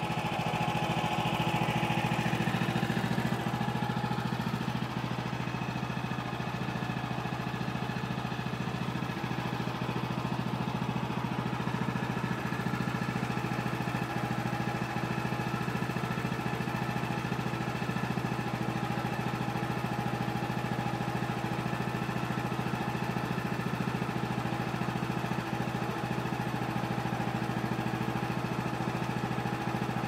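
Sawmill engine running at a steady speed, a constant unbroken drone.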